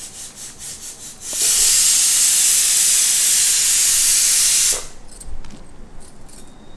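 Hands swishing cauliflower florets in a steel pot of water, then a steady, loud rush of running water for about three seconds that stops sharply, as the vegetables are rinsed for blanching.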